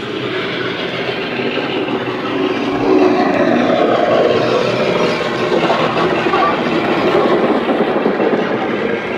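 Sound-fitted model class 42 Warship diesel locomotive: its DCC decoder plays a diesel engine sound under power through an EM2 speaker. The sound grows louder about three seconds in as the locomotive passes.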